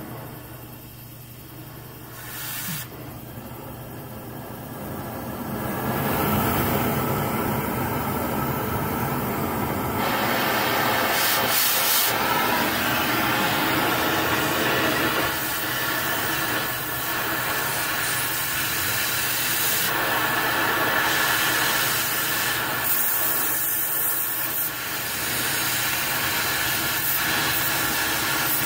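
Oxyacetylene cutting torch hissing steadily as it cuts through rusted exhaust bolts. The hiss grows much louder about six seconds in and stays loud.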